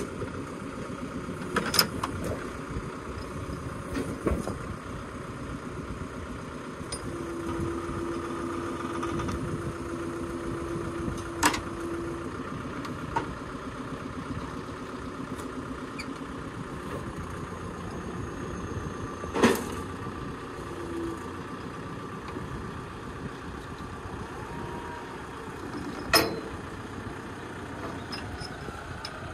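An engine running steadily, with a handful of sharp knocks at uneven intervals.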